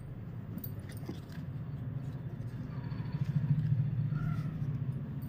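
A low, steady hum that grows louder around the middle and eases off toward the end, with a few faint clicks of cloth being handled.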